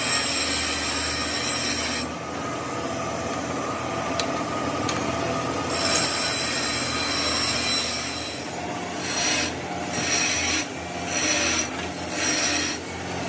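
Metal lathe turning the steel shaft of an air-compressor screw rotor, with the cutting tool squealing high-pitched against the metal. Near the end the squeal comes and goes in four short bursts about a second apart.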